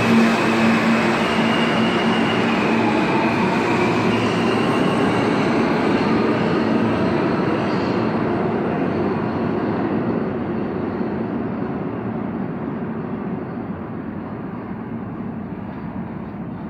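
New York City subway L train pulling out of the station, with a motor whine rising in pitch as it gathers speed over the running rumble of its wheels. The sound fades steadily as the train recedes into the tunnel.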